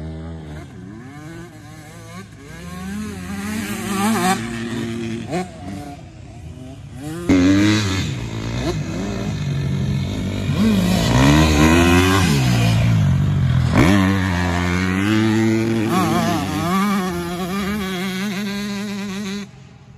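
Dirt bike engines revving hard as they ride the track, the pitch climbing and dropping again and again with throttle and gear changes. They get much louder about seven seconds in.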